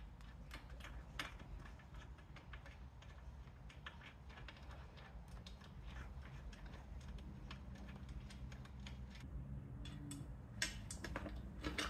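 Small clicks and taps of fingers handling a new motorcycle indicator and threading its mounting nut on by hand, over a low steady background hum. A few sharper clicks come near the end.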